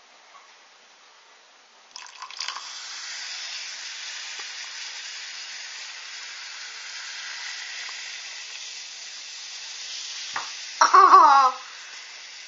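Citric acid and baking soda fizzing hard in a glass as water is poured in: a steady fizzing hiss that starts about two seconds in, the acid-base reaction giving off carbon dioxide with water as the catalyst. A brief voice cuts in near the end.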